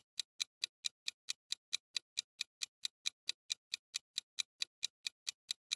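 Countdown-timer sound effect: soft, even clock-style ticks, about four and a half a second, counting down the thinking time in a quiz.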